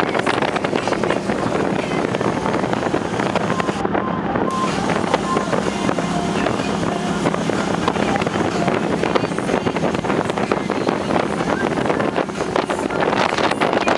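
Speedboats running at speed: a steady engine hum under a loud wash of wind buffeting the microphone and water rushing past the hull.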